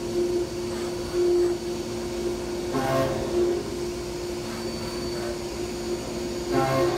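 CNC machining center's spindle running an end mill through an RB26 cylinder head, cutting clearance into the lifter-bucket bores for a high-lift camshaft. A steady machine hum with a held tone, louder for a moment about a second in.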